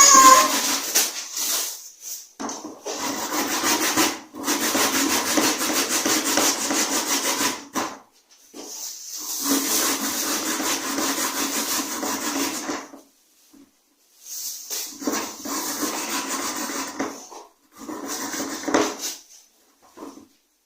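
Produce being grated by hand on a grater: rough rasping strokes in runs of several seconds, broken by short pauses.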